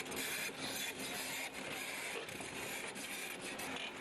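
Excavator working its way up a rock slope: a steady, rough scraping noise with a faint hum underneath, broken by short dips.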